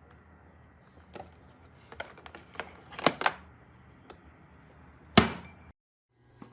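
A string of short, light clicks and knocks in a small room, with one sharp, louder knock about five seconds in, after which the sound cuts out abruptly.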